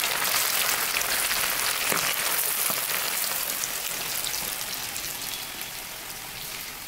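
Marinated chicken pieces deep-frying in hot oil in an iron kadai: a steady crackling sizzle of bubbling oil that grows gradually quieter.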